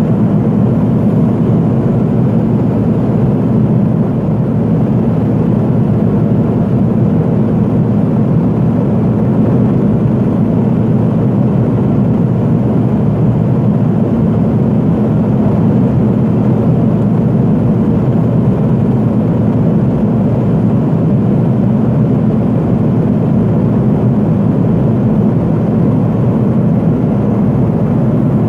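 Cabin noise of a Pilatus PC-12 in flight: its single Pratt & Whitney PT6A turboprop engine, propeller and airflow make a steady low drone that does not change.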